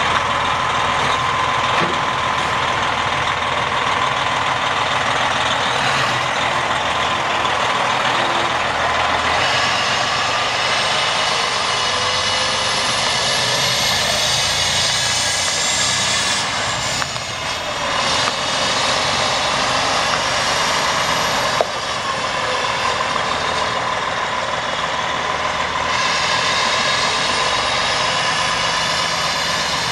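Freightliner Columbia semi tractor's Detroit Diesel Series 60 12.7-litre straight-six turbo diesel running as the truck drives away. A high whine rises in pitch about twelve seconds in and again near the end, and there is one sharp click a little past the middle.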